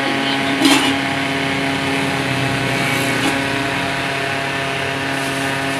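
A motor running steadily with an even, many-toned hum, with one brief clatter less than a second in.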